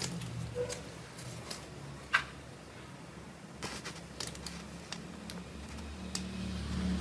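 Faint scattered clicks and light rustles of a hand handling a plastic digital wristwatch with a rubber strap, the sharpest click about two seconds in, over a low background hum.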